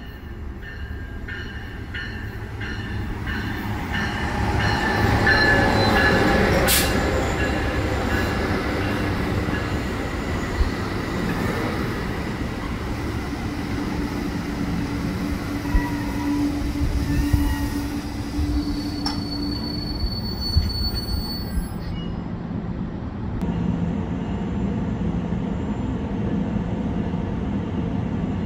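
Commuter train headed by a Bombardier ALP-45DP locomotive pulling into a station and braking to a stop. It gets loudest a few seconds in as the locomotive passes. The bilevel coaches then roll by with rumbling wheels, a few sharp clunks and thin squealing tones, and the sound settles into a steady low hum near the end as the train stands.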